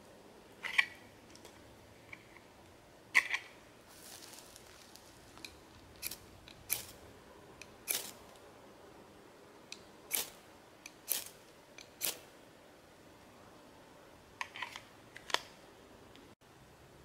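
Ferro rod (fire steel) scraped hard and fast about ten times, each stroke a short sharp rasp, throwing sparks into a small folding stove to light it.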